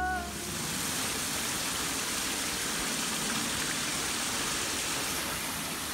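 A steady, even rushing hiss that starts abruptly out of silence, with a brief pitched tone at the very start.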